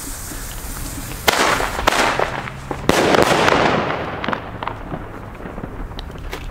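Firecrackers going off: a sharp bang about a second in and a louder one about three seconds in with a long decaying tail, over a hiss that fades out, then a few small pops.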